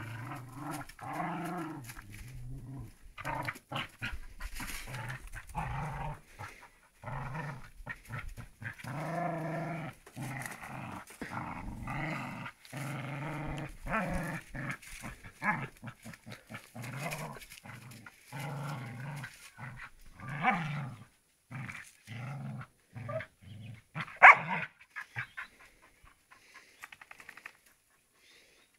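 Kelpie growling over and over, in runs of low growls each up to a second or so long, while rooting at a hole in the ground after some quarry. One sharp louder sound comes about 24 s in, and the growling stops soon after.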